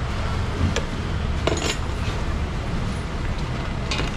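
Three short clinks of metal utensils against stainless steel bowls and trays, the middle one longer and ringing, over a steady low background rumble.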